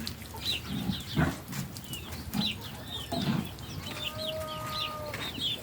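Chickens clucking, with many short high chirps over them and one longer held call about four seconds in.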